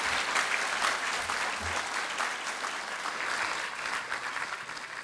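Audience applauding at the end of a talk, many hands clapping together, loudest at first and slowly dying down.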